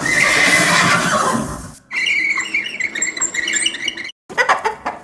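Recorded horse neighing: a long whinny falling in pitch over the first two seconds, then a second, wavering call. A few short clicks near the end.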